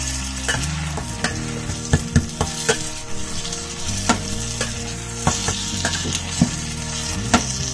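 Chopped onion and tomato sizzling in mustard oil in a stainless steel kadai while a slotted spatula stirs them, knocking and scraping against the pan in irregular clicks about twice a second.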